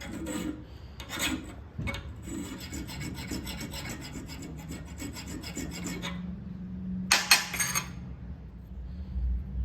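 Hand file scraping across the steel of a folding-knife blade's tang, a few short strokes and then a longer run of quick back-and-forth strokes, with one more stroke near the end.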